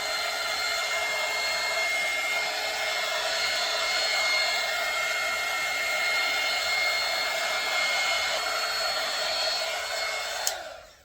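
Heat gun blowing steadily: a rush of air with a steady motor whine. It is switched off with a click about ten and a half seconds in, and the whine falls away.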